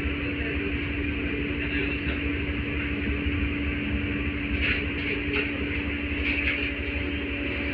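LVS-86 articulated tram running along the line, heard from inside the passenger saloon: a steady low rumble of wheels on rails with a constant hum, and a few short clicks and rattles about five seconds in.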